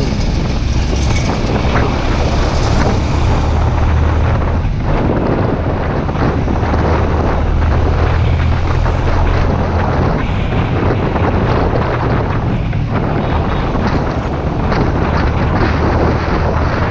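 Motorcycle engine running steadily at cruising speed, mixed with wind noise on the microphone.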